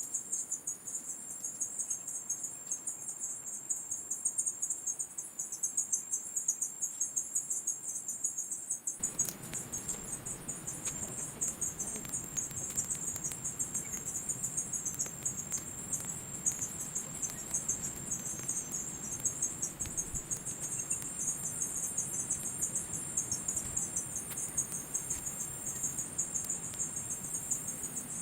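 Crickets chirping in a steady, high-pitched chorus. About nine seconds in, a soft background rush of noise joins them.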